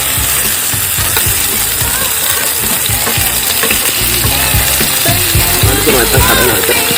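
Seasoned chicken breast frying in hot oil: a steady sizzle.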